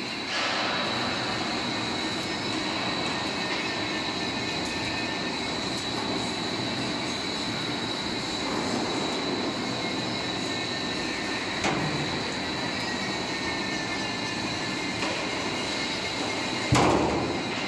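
Floor deck roll forming machine running, its steel rollers forming sheet steel into an 80 mm deep trapezoidal deck profile: a steady mechanical rumble with a constant high whine. A knock comes about 12 seconds in and a louder one near the end.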